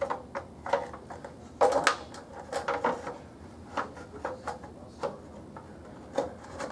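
Plastic body shroud of a Pride Jazzy Select 6 power chair being pressed back into place over the base by hand: a series of short plastic clicks and knocks, the loudest about two seconds in.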